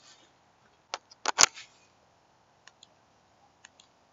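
Small sharp paired clicks, one pair about once a second, of a SIRT laser training pistol's trigger being pressed and reset during dry fire. About a second and a half in comes a much louder sharp knock and clatter, the loudest sound here.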